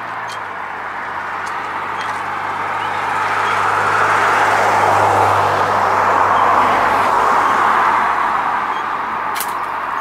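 A road vehicle passing, its tyre and engine noise swelling to a peak about halfway through and then fading. A short click near the end.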